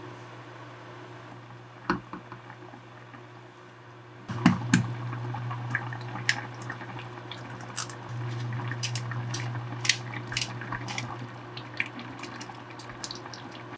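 Soft tofu stew bubbling and popping in a pot over a Samsung The Plate induction hob, which gives a steady low hum, while a wooden spoon stirs it and an egg is cracked in. The bubbling and popping get louder about four seconds in.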